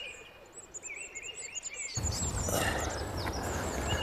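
Small birds chirping in woodland, short repeated calls. About halfway through, a steady rushing noise with a low rumble starts suddenly and continues under the birdsong.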